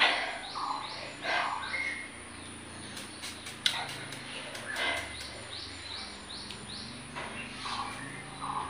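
A bird chirping in a long, regular series of short rising chirps, about two or three a second, through the middle stretch, over soft mouth and chewing sounds from eating grapes.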